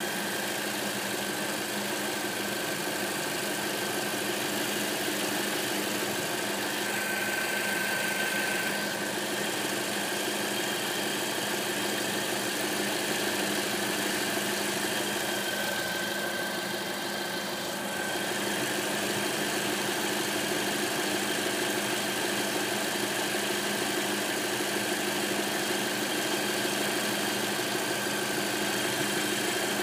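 2009 Toyota Corolla CE four-cylinder engine idling steadily, with a thin high-pitched whine over the running that grows louder and fainter at times. It is the noise that remains after a new water pump was fitted; the owner is unsure whether the pump was installed badly or another component is making it.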